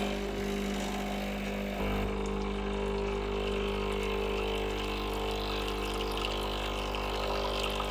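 Breville Barista Express's vibratory pump running with a steady buzzing hum as it pushes a single shot of water through the group head, dispensing the factory-default single-shot volume after a reset. The hum steps up slightly about two seconds in.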